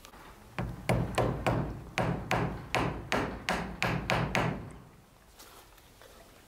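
Claw hammer driving a nail through a thick felt sheet into a wooden shed wall: about a dozen steady blows, roughly three a second, that stop a little past halfway.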